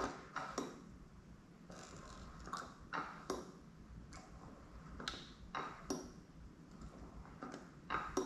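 West System mini pumps being pressed to meter 105 epoxy resin and 209 hardener into a plastic cup: about ten short clicks of the plungers, some in close pairs.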